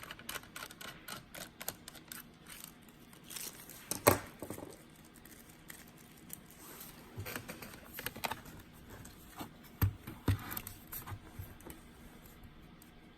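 Irregular small clicks and taps of a Lenovo Edge 15 laptop being handled and worked on for a RAM upgrade, with the loudest knocks about four and ten seconds in.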